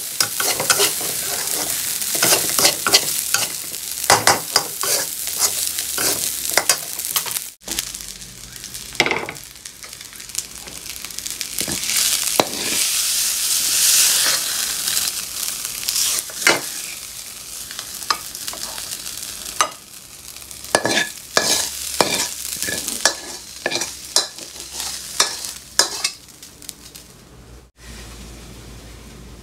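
Rice sizzling as it fries in a metal pan, with a metal spatula scraping and clicking against the pan again and again as it is stirred and scooped. The sound breaks off suddenly about a quarter of the way in and again near the end.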